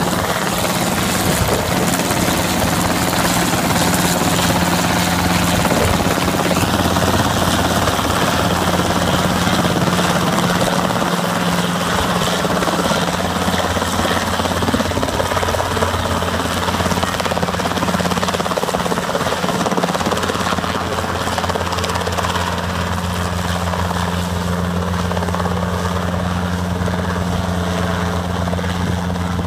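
Robinson R22 light helicopter hovering low, its rotor and piston engine running steadily with a deep hum under the rush of rotor downwash, easing slightly as it moves slowly away.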